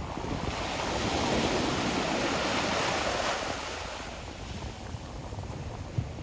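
Ocean wave breaking on the shore: a wash of surf that swells about half a second in and then recedes over the last couple of seconds, with wind rumbling on the microphone.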